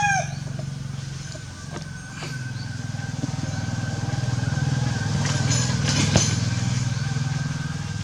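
An engine running steadily with an even low throb, growing slightly louder, with a few sharp clicks, one louder about six seconds in. The tail of a rooster's crow ends right at the start.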